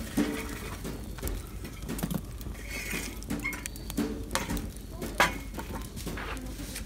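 Wood campfire crackling, the burning logs giving off irregular sharp pops and snaps, with one louder snap about five seconds in.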